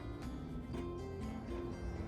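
Background music with held notes over a low bass, moving to a new note every half second or so.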